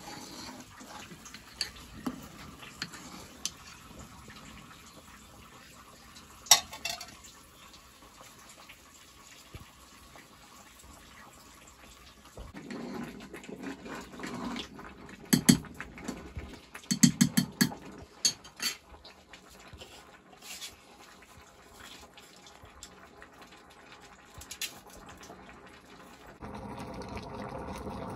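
Metal ladle stirring in an aluminium cooking pot of boiling food, with scattered clinks and a run of loud clanks against the pot about halfway through. A steady hiss from the boiling pot sets in near the end.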